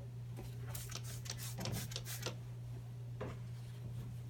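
Table being wiped and cleaned, with a run of short rubbing and scraping sounds about a second in and one more near the end, over a steady low hum.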